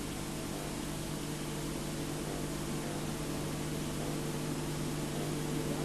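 Steady hiss with a low electrical hum underneath, the background noise of an old soundtrack; no other sound stands out.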